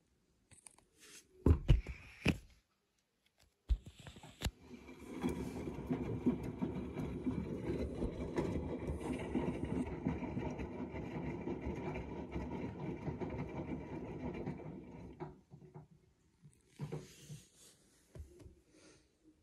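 Siemens WM14S890GB front-loading washing machine in its cottons 40° main wash: a few loud knocks, then the drum turns for about ten seconds with the motor running, water sloshing and wet laundry tumbling, before it stops.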